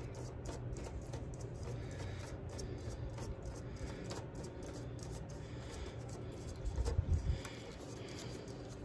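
Faint rubbing and scraping of a gold ball finial being twisted by hand onto the threaded top of an aluminium flagpole. A brief low rumble of handling on the microphone comes about seven seconds in.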